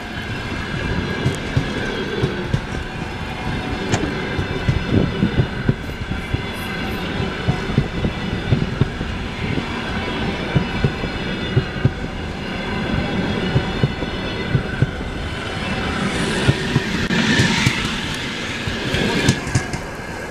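Passenger coaches of a locomotive-hauled train rolling past close by, their wheels clattering over the rail joints in a rapid stream of knocks. A louder rushing noise comes as the last coaches pass near the end.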